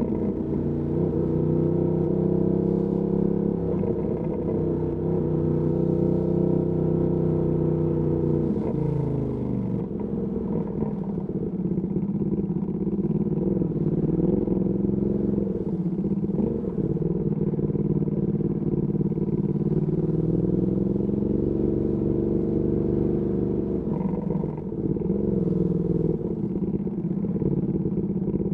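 Ducati Panigale V2S V-twin engine through a Termignoni exhaust, heard while riding. Its note holds steady at first, falls as the revs drop about eight seconds in, then rises again around twenty seconds in and dips briefly a few seconds later.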